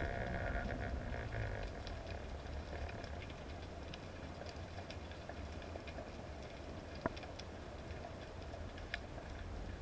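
Underwater ambience heard through a camera housing: a steady low rumble with scattered faint clicks and crackles, a soft hiss in the first second or so, and two sharper clicks about 7 and 9 seconds in.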